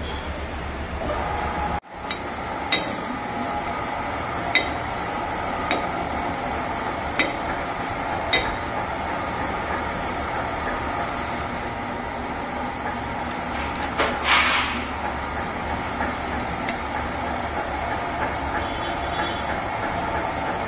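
Steady mechanical running noise with thin high metallic squeals, and sharp metallic clicks about once a second through the first half. A short louder burst comes about two-thirds of the way through.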